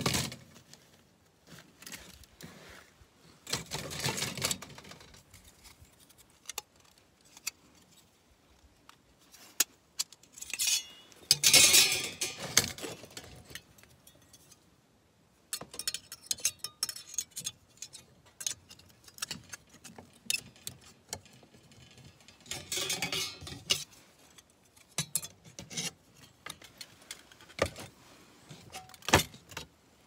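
Thin metal camp-cooking gear handled on a table: a wire cookware mesh, a burner pad and folding metal windscreen panels set around a small gas stove. Light clinks, rattles and rustles come at irregular intervals, with a few louder spells of handling about 4, 12 and 23 seconds in.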